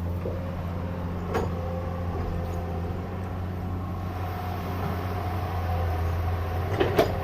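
Excavator's diesel engine running steadily, with one sharp knock about a second and a half in and two louder knocks close together near the end.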